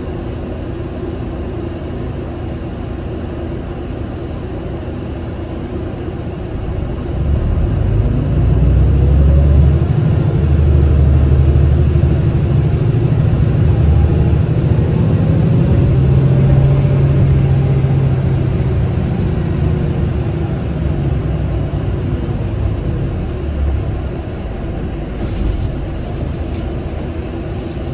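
Mitsubishi Fuso Aerostar city bus heard from inside the cabin. Its six-cylinder diesel idles at a standstill, then about seven seconds in the bus pulls away and the engine note rises. It runs loud under acceleration for several seconds before easing off toward the end.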